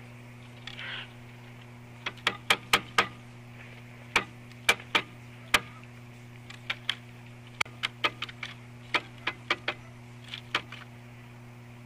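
A run of sharp, irregular clicks or knocks, some in quick clusters, over a steady low hum.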